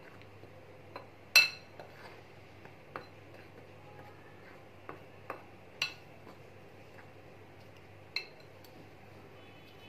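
Metal spoon stirring dry flour in a glass bowl, clinking against the glass about eight times at uneven intervals, the loudest strike about a second and a half in.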